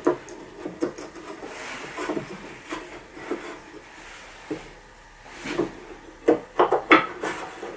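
Wooden boards and slats knocking and sliding against each other as pine boards are fitted into a homemade wooden bar clamp. The knocks come at irregular intervals, with a quick run of sharper clacks near the end.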